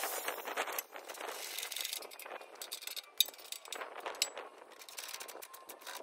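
Light irregular clicks and scraping of a hand tool on the metal hose fitting of a Wood-Mizer sawmill's Lube-Mizer tank, with one sharp click about three seconds in.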